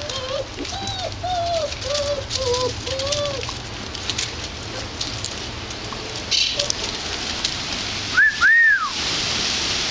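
Belgian–German Shepherd cross puppies yipping in a quick run of short, arched calls over the first three seconds or so. About eight seconds in, a squeaky toy squirrel squeaks twice, the loudest sound, over a steady hiss.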